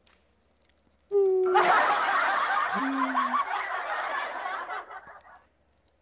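A person laughing, starting about a second in and going on for about four seconds before tailing off.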